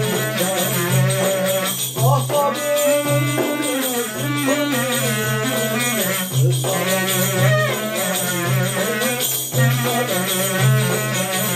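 A man singing a melody while beating a steady rhythm on a tambourine, a frame drum with jingles, whose low thuds and jingle rattle carry under the voice.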